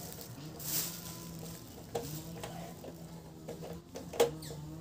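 Small metal clicks and scrapes as parts of a portable gas stove are handled and fitted together, with one sharp click about four seconds in, over a low steady hum.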